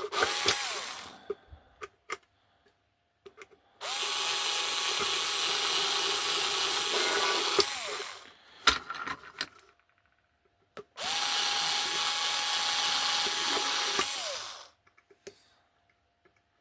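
Small electric drill with a 2 mm bit running in short bursts, three times, reaming out the hinge holes of a 3D-printed wagon body. Each burst spins up and winds down, and there are small handling clicks between them.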